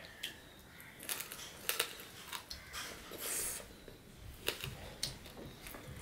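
Close-up eating sounds of polao eaten by hand: chewing and wet mouth clicks, with fingertips scraping rice grains across a steel plate. It comes as a string of short sharp clicks, with a brief hiss a little past the middle.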